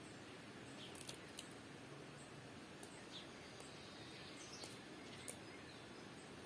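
Quiet outdoor background hiss with a handful of faint, very short high-pitched ticks scattered through it.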